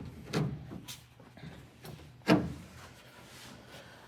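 A few sharp metallic knocks as the loose sheet-metal quarter panel is handled and shifted into place. The loudest comes a little over two seconds in.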